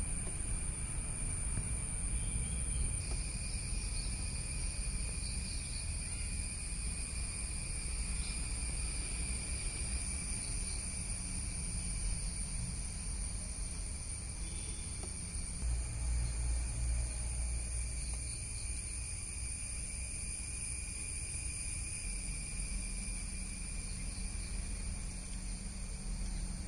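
Insects trilling steadily outdoors, a continuous high-pitched chorus in several pitches, over a low rumble that swells briefly around the middle.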